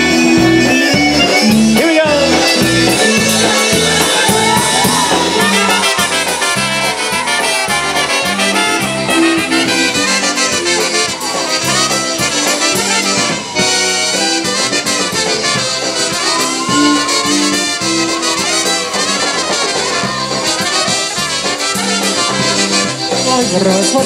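Live polka band playing an instrumental passage: two trumpets lead over accordion and concertina, with drums keeping a steady bouncing beat.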